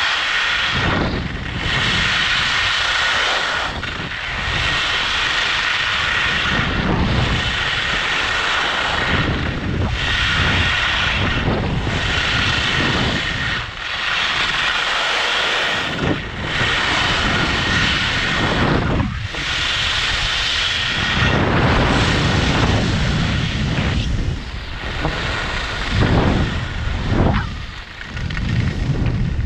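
Skis carving down a freshly groomed, hard-packed piste: the edges scrape with a hiss that swells with each turn, about every one and a half to two seconds, over the rush of wind on the microphone.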